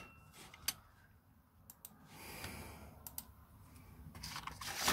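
A few faint, scattered clicks of a computer mouse and keyboard being worked, with a soft rustle about two seconds in.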